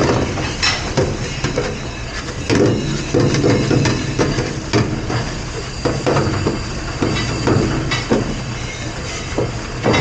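Commercial kitchen dish-room noise: a machine running with a steady low hum, under irregular clattering and knocks throughout.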